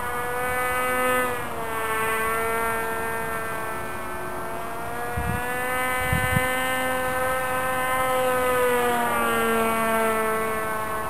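Radio-controlled model aircraft in flight, its motor and propeller a steady high drone whose pitch sinks, climbs and sinks again as the model moves around the sky. There are a few short low thumps a little past the middle.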